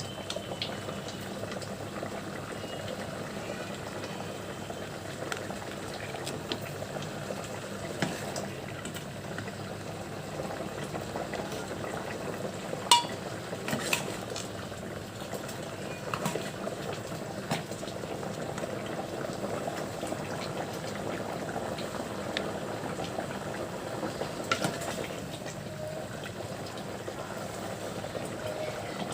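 Hot chicken curry bubbling and sloshing as it is ladled from the cooking pot into a serving bowl, with a few sharp clinks of the ladle against the vessels, the loudest about halfway through.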